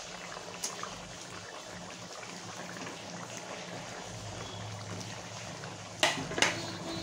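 Spiced curry gravy boiling in a kadai, a steady bubbling with a faint low hum beneath it. About six seconds in come two short, sharp sounds.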